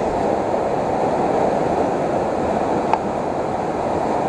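Steady rush of a waterfall in flood, swollen muddy water pouring over rocks after heavy rain. A brief tap about three seconds in.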